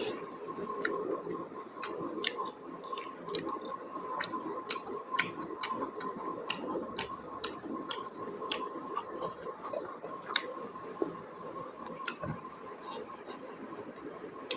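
Close-miked chewing and eating of buffalo innards curry: irregular wet mouth clicks and smacks, one to three a second, over a faint steady high hum.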